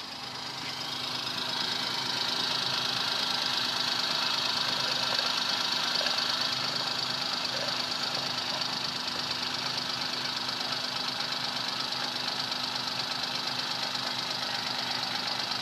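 Suzuki Alto's small three-cylinder petrol engine idling steadily while its cooling system is topped up and bled of air. A steady hissing rush builds over the first couple of seconds and then holds.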